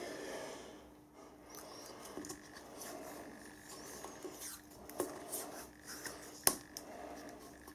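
Hands handling metal parts close to the microphone: scratchy rubbing and light scraping with small clicks, and one sharp click about six and a half seconds in.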